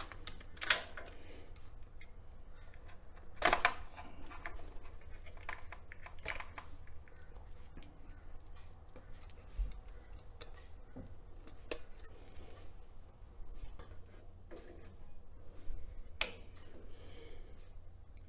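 Scattered light clicks and rustles of hands handling a fridge control board and its wiring, with a few sharper clicks just under a second in, about three and a half seconds in and near the end.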